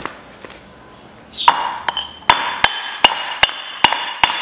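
Hammer striking steel on a Peugeot 407 driveshaft's cut locking collar, starting about a second and a half in and going on evenly at about two and a half blows a second, each with a bright metallic ring. The collar has been cut through in two places and is being knocked loose from the shaft.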